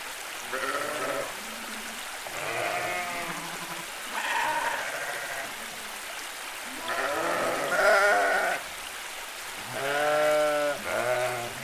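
Sheep bleating repeatedly, several calls about a second long each, a second or two apart, some higher and some lower in pitch.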